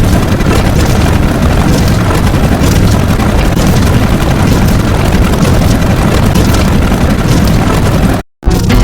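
Loud, dense noise with heavy bass, like layered booms or explosions, running without a break. It cuts off suddenly near the end, and after a brief silence another loud burst begins.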